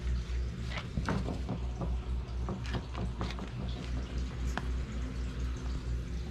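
A run of light clicks and knocks over a steady low rumble, clustered in the first few seconds with a last one a little later.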